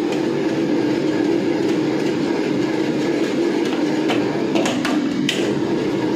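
Commercial gas wok burner running at high flame, steady throughout, under the sizzle of rice noodles being tossed in the hot wok. A few sharp metal clanks of wok and ladle come about four to five seconds in.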